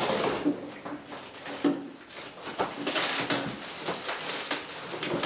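Cardboard and packing material rustling and scraping, with irregular light knocks as parts are lifted out of a shipping box.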